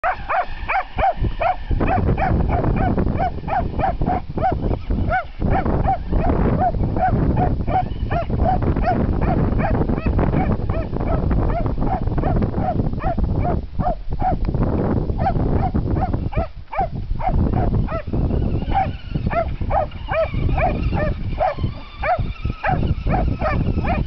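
Jack Russell/dachshund mix barking rapidly, about three short high barks a second with a few brief pauses, while chasing a remote-control truck, over a constant low rushing noise.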